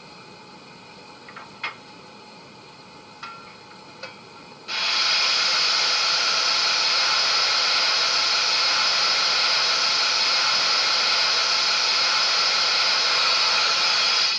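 DCC sound decoder in a Hornby BR Standard Class 2MT model steam locomotive playing steam sounds while the engine stands: a few short clicks, then a sudden loud, steady steam hiss for about ten seconds that cuts off abruptly.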